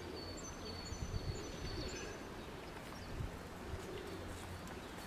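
A small bird gives a short run of high, thin repeated notes in the first two seconds, while pigeons coo low and a steady low wind rumble sits on the microphone.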